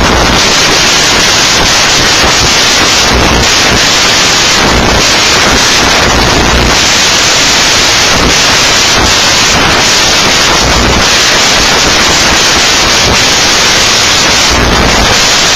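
Loud, steady static-like hiss.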